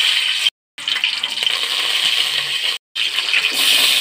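Green chillies and whole spices sizzling in hot oil in a steel pot: a loud, steady frying hiss, cut off briefly twice.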